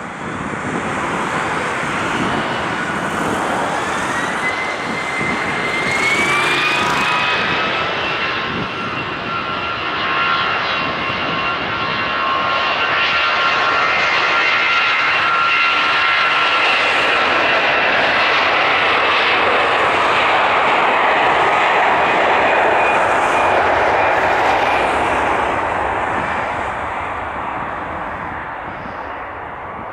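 Boeing 757's twin jet engines spooling up with a rising whine over the first several seconds, then a steady whine over a jet roar. The roar swells and then fades away near the end, as on a take-off roll past the microphone.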